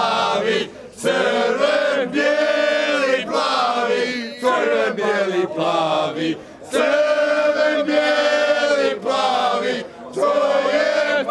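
A group of men singing together in chorus, a chant-like song in phrases of a few seconds with long held notes and short breaks between them.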